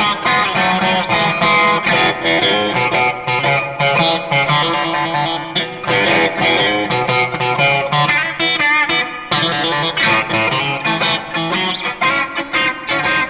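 Fender Stratocaster Deluxe Roadhouse electric guitar played through a multi-effects unit: a lead line of many quickly picked notes mixed with some held ones.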